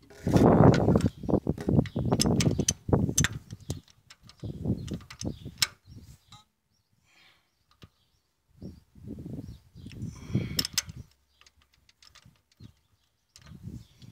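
Ratchet wrench clicking and metal tools knocking on the exposed rocker arms of a Caterpillar 950F loader's diesel engine, among stretches of rumbling handling noise on the microphone, with a quiet pause around the middle.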